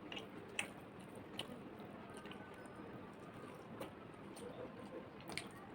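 A person chewing a meal of mutton curry and rice, with a few sharp clicks scattered through.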